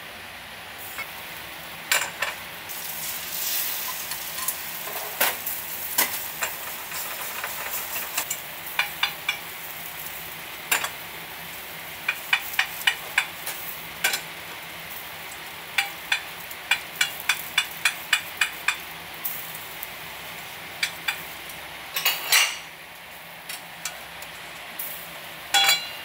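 Egg sizzling in a rectangular tamagoyaki omelette pan over a gas flame, with runs of quick sharp taps and scrapes of cooking chopsticks against the pan as the omelette is worked.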